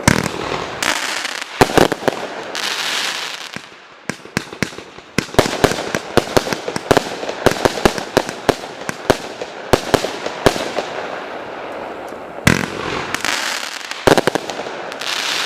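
A 93-shot, 25 mm fan-shaped firework battery firing: sharp shots and bursts, packed into rapid volleys through the middle, with stretches of hissing noise between them.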